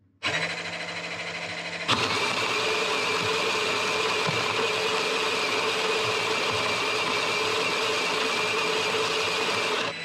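Spinn coffee maker's built-in grinder motor starting up with a low hum, then grinding coffee beans with a louder steady whirr from about two seconds in, which drops away near the end.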